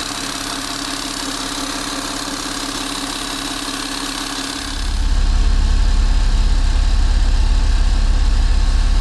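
Peugeot 407's 2.7 HDi V6 diesel engine idling, with ticking noises from the alternator pulley, whose overrunning clutch is slipping and upsetting the battery charging. About four and a half seconds in, the sound turns louder and deeper.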